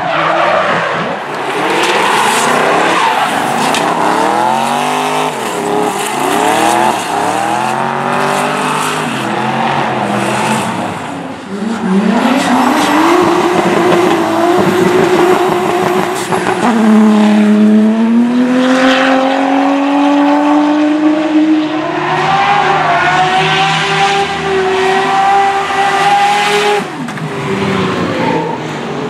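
Drift cars' engines revving up and down rapidly at full throttle, with tyres squealing. From about twelve seconds in come longer pulls held at high revs, the pitch climbing slowly, until one stops near the end.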